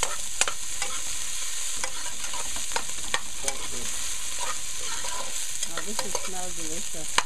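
Shrimp, garlic, onion and peppers sizzling in hot oil in a stainless steel pot, stirred with a metal spoon: a steady sizzle with frequent clicks and scrapes of the spoon against the pot, the sharpest click near the end.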